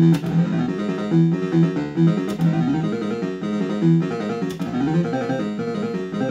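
Bell-Fruit Cash Explosion fruit machine playing its electronic tune, a run of stepped synthesised notes, with a sharp click about every two seconds.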